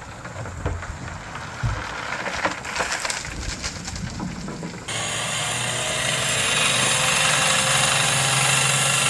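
Scattered knocks and clatter, then about five seconds in a motor starts up abruptly and runs steadily with a low hum, slowly getting louder.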